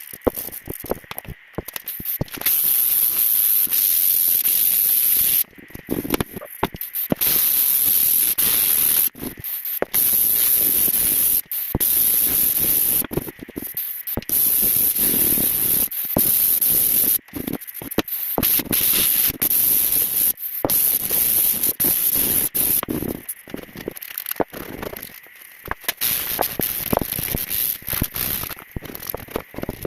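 Aerosol paint stripper sprayed onto a saw's wooden handle to strip its varnish: a series of hissing spray bursts, each one to three seconds long with short gaps between, shorter and choppier near the end.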